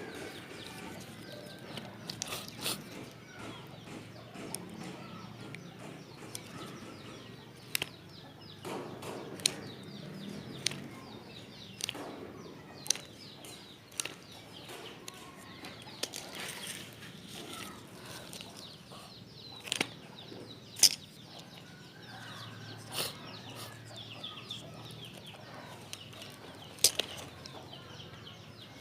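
Rustling and crinkling of plastic packaging, with scattered sharp clicks and taps, as the hose and its parts are unpacked and handled.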